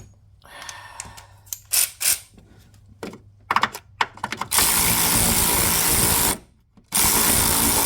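Power drill/driver running in two steady bursts of under two seconds each, spinning out a 10 mm bolt. A few light clicks and knocks of the tool being set on the bolt come before.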